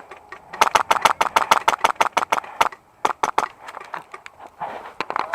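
Airsoft gunfire: a rapid string of sharp shots at about ten a second, lasting roughly two seconds, then a few scattered single shots.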